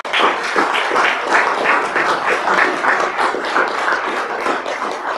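Applause from a roomful of people, many hands clapping at once, beginning to die away near the end.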